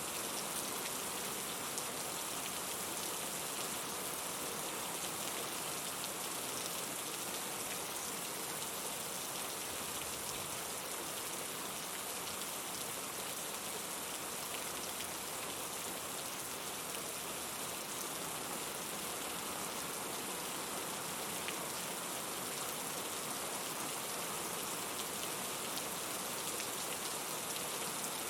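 Steady rain falling, an even hiss of many drops with faint scattered taps, unchanging throughout.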